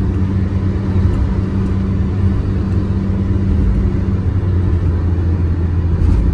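Road noise of a moving car heard from inside the cabin: a steady low rumble of engine and tyres on the highway, with a constant low hum.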